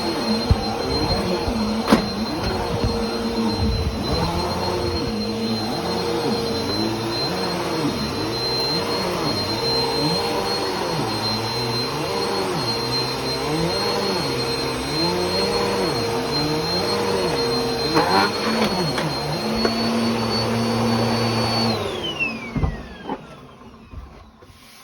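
Bissell PowerForce Compact Turbo bagless upright vacuum running with a steady high whine, its lower sound swelling and dipping about once a second as it is worked back and forth over the floor. Near the end it is switched off and the motor winds down, its whine falling away.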